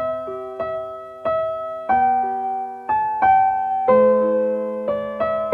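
Background piano music: a slow, gentle melody of single struck notes, a new one every half second to a second, each ringing and fading before the next.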